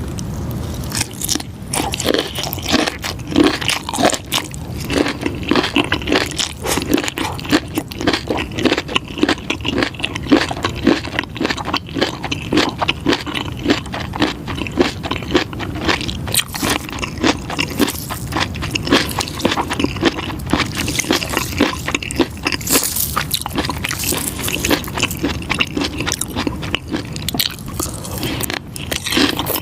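Close-miked eating of pickled fish skin: continuous chewing and biting, with rapid, irregular crackling clicks.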